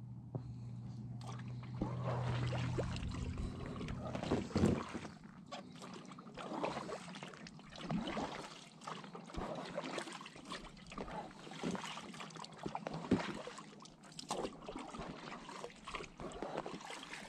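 Kayak paddle strokes: the double-bladed paddle's blades dipping into the water and splashing, with water trickling off the blades, about one stroke every second or two.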